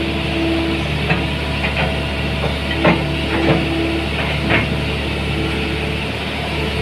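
Hitachi ZX110MF excavator's diesel engine running steadily, with a few sharp metallic knocks.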